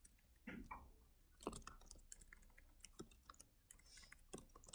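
Faint, scattered clicks of a computer mouse and keyboard on a lectern, with a few soft knocks, over near-silent room tone.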